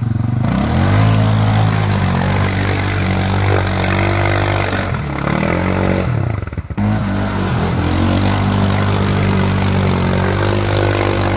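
Quad bike (ATV) engine revving hard under load as it pushes through deep mud and water, with the slosh and spray of the churning tyres. The revs climb soon after the start and hold high, drop away briefly about halfway, then rise and hold again before easing off near the end.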